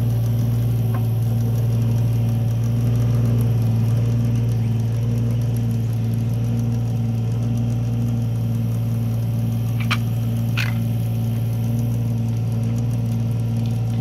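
Mini excavator's diesel engine running steadily, powering a hydraulic drive head that screws a steel screw pile into the ground. Two short clicks come about ten seconds in.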